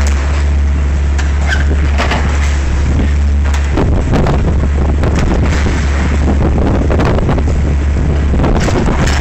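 Liebherr 944 demolition excavator's diesel engine running hard under hydraulic load, with repeated knocks and scraping of the demolition tool against a steel I-beam. About four seconds in the steady engine drone turns rougher and the clatter thickens as the load changes.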